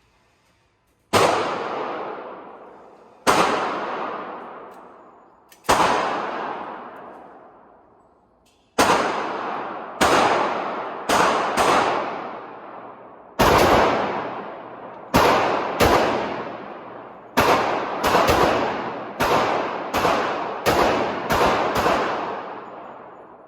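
Pistol shots from a .45 ACP 1911, about twenty in all, each followed by a long echoing tail. The first four come a few seconds apart, then the rest come in quicker strings, some less than a second apart.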